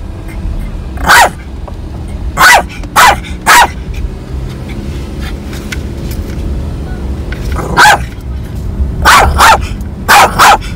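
Small pet dog barking in short bursts, about nine barks, singly and in quick pairs, with a pause of a few seconds in the middle. Underneath is the steady low rumble of the car on the road.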